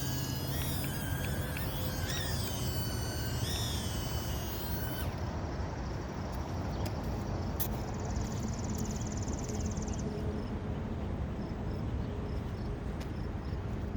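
Toy mini quadcopter drone's small motors whining, the pitch wavering up and down as it is flown, then stopping about five seconds in. A steady outdoor background noise follows.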